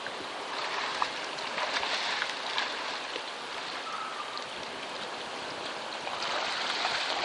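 Seawater splashing and sloshing as swimmers kick and paddle at the surface, with the sea lapping against rocks. The splashing swells about a second and a half in and again near the end.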